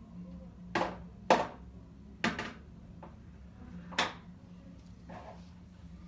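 Four sharp cracks or bangs, irregularly spaced within about four seconds, then a softer one, over a low steady hum.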